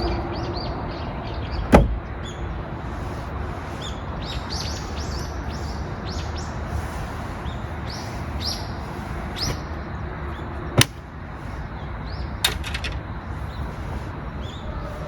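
Small birds chirping over steady outdoor background noise. A sharp knock comes near the start and another about nine seconds later, with a quick run of clicks soon after.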